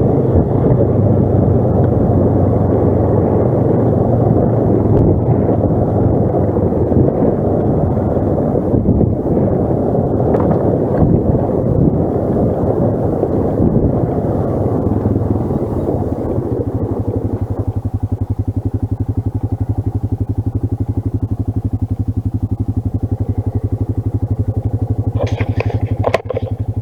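ATV engine running under way, then settling to a steady idle about two-thirds of the way through.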